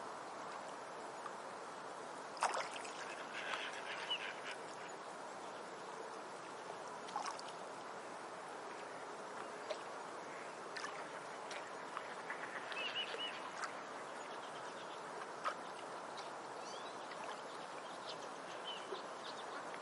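Steady running water with scattered short bird calls and chirps above it.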